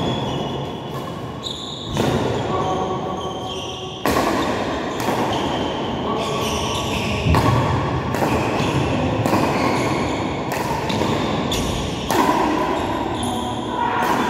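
Badminton rally: rackets striking the shuttlecock about once a second, a dozen or so sharp hits, with short shoe squeaks on the court floor between them, echoing in a large hall.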